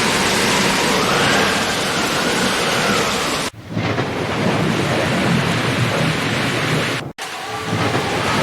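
Steady heavy rain with a low rumble of thunder under it. The rush of noise cuts out for an instant twice, about halfway through and near the end.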